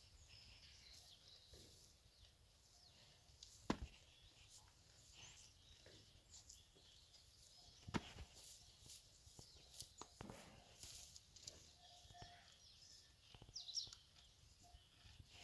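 Near silence: faint outdoor ambience, broken by a couple of sharp clicks and a short high chirp near the end.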